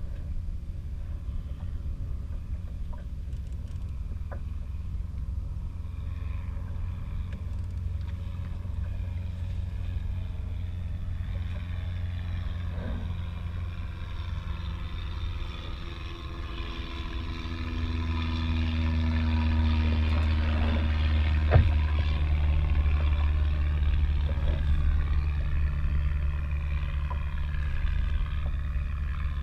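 Wind rumbling on the microphone over water lapping around a kayak. A pitched drone swells in the middle and fades. One sharp click comes about two-thirds of the way through.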